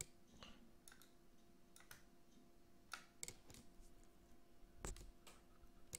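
Near silence: faint, scattered clicks of a computer mouse over a faint steady hum.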